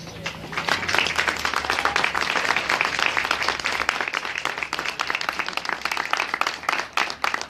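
Crowd applause building about half a second in, with spectators nearby clapping their hands, the single claps standing out more near the end.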